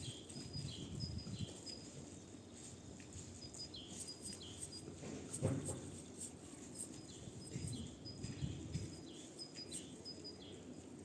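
A bird calling over and over in runs, each call a short high note dropping into a lower falling one, with wind rumbling on the microphone and a single knock about five and a half seconds in.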